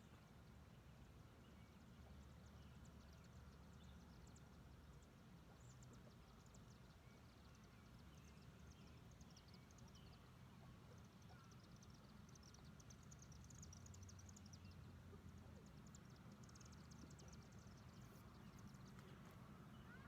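Near silence: faint outdoor background with a steady low rumble and scattered faint high ticks.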